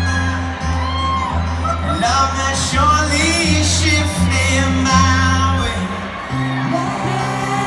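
Live rock band playing with a sung lead vocal over a pulsing bass line, recorded from the audience in a large venue; the bass steps down to a lower note about six seconds in.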